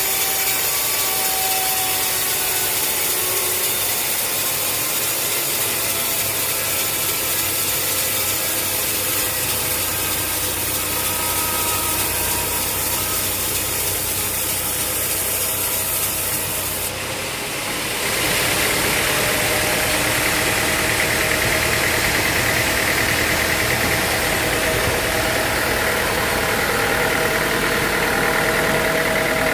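Sawmill machinery running as a saw cuts through wood. About two-thirds of the way through, the sound dips briefly and gives way to a steadier, lower engine drone.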